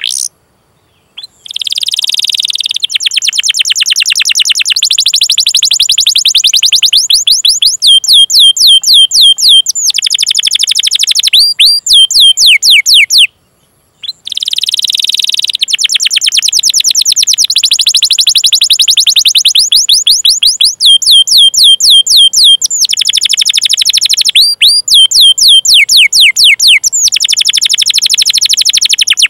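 Domestic canary singing a long, fast song of rapidly repeated chirps ('cuit cuit' calls) and rolling trills, loud. It breaks off briefly about a second in and again just before the middle, then carries on.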